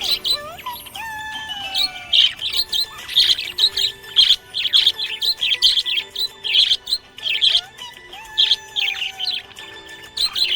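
Budgerigar chirping and warbling: a rapid, uneven string of short high chirps with a few lower sliding whistles.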